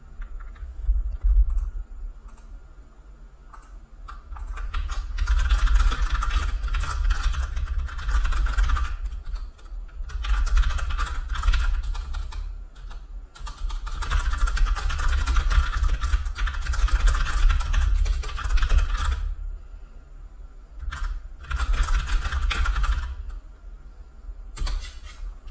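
Rapid typing on a computer keyboard in several runs of a few seconds each, with short pauses between, over a low rumble.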